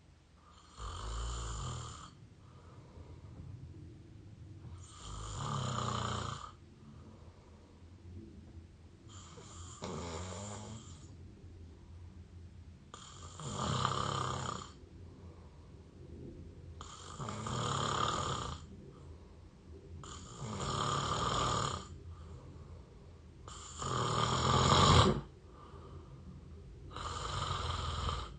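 A person mouth-snoring close to the microphone: eight snores, one about every three and a half to four seconds, with quieter breaths between them. The second-to-last snore is the loudest.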